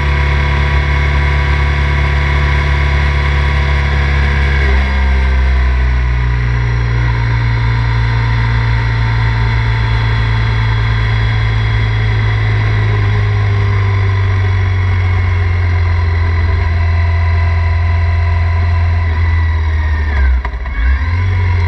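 Triumph Thruxton 900's parallel-twin engine running steadily on a light throttle, heard from the saddle. The engine note drops in pitch about five seconds in and dips briefly near the end as the bike slows.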